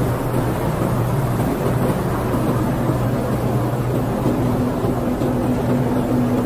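Potato brush washing machine running: a steady motor hum under the noisy churn of potatoes tumbling over the rotating brush rollers and spiral auger. A second, higher hum joins in about four seconds in.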